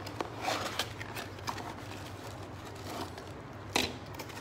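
Cardboard box and plastic-wrapped parts being handled on a wooden table: light rustling and small clicks, with one sharp knock near the end.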